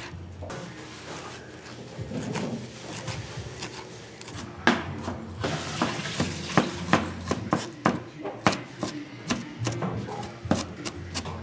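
Large kitchen knife cutting on a plastic cutting board: soft slicing through tomato at first, then, from about five seconds in, chopping onion, the blade knocking on the board about two to three times a second.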